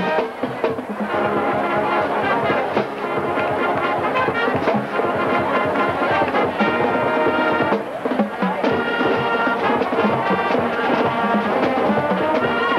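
High school marching band playing: brass section sounding held chords over a steady drum beat.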